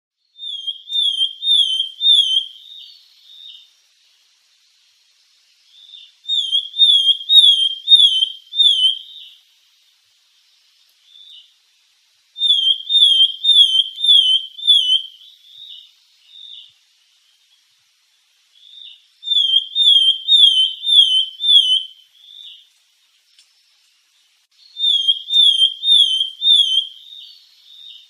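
Sultan tit singing: five phrases about six seconds apart, each a quick run of four or five loud, high, clear falling notes followed by a few softer notes.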